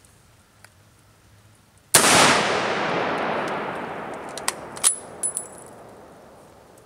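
A single rifle shot from a 1903 Springfield about two seconds in, its echo fading away over several seconds. A few short metallic clicks with a brief ring follow a couple of seconds after the shot.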